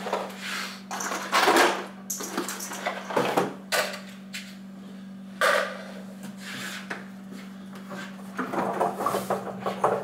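A small fridge being handled: its door swung shut about five and a half seconds in, then the cabinet shifted and turned round on a tabletop, giving a series of knocks, bumps and scrapes, the busiest near the end. A steady low hum runs underneath.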